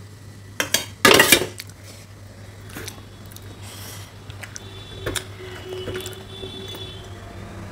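Stainless steel plates clattering together, two sharp knocks about a second in, as a small plate of mangoes is handled and set down; then a few faint clinks over a low steady hum.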